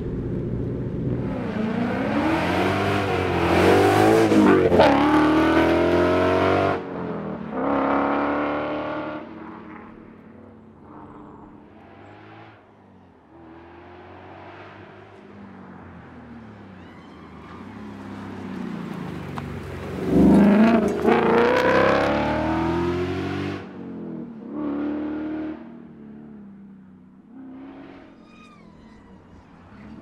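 2017 Ford Mustang coupe rally car accelerating hard and passing at speed several times, the engine note rising through the gears with brief drops at the shifts. The loudest runs come in the first quarter and again about two-thirds of the way in, with quieter distant running between.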